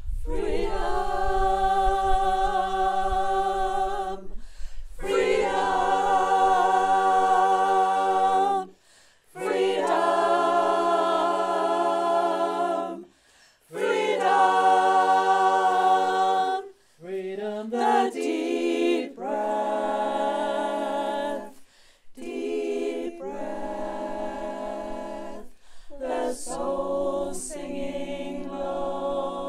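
Unaccompanied choir singing long held chords with no clear words, in phrases of about four seconds with short breath pauses between them. After about seventeen seconds the notes move more and the phrases get shorter and quieter.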